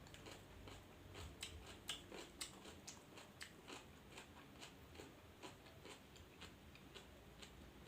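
Faint close-up chewing and biting of food, with irregular crisp crunches a couple of times a second.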